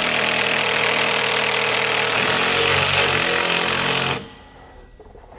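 Cordless drill running under load as it drives a self-tapping screw into a steel trailer frame rail, then stopping abruptly about four seconds in as the screw seats.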